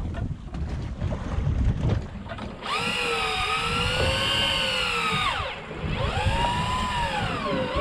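A small electric motor whining, its pitch rising and falling as its speed changes. It cuts out briefly about two-thirds of the way through, then starts again. Under it is wind and water rumble.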